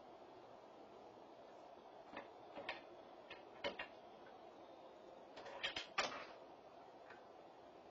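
Red fox chewing crunchy treats: a few sharp, separate crunching clicks, then a quicker, louder cluster of crunches about six seconds in, over a steady low hiss.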